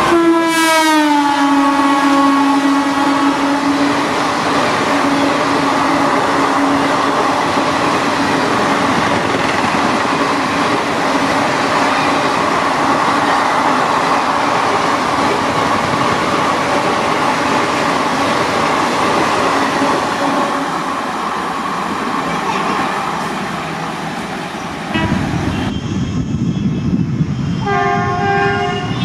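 Indian Railways train passing at speed: the locomotive horn drops in pitch as it goes by, then the coaches rush past in a long steady roar of wheels on rail. Near the end a different recording starts, and another locomotive gives two short horn blasts.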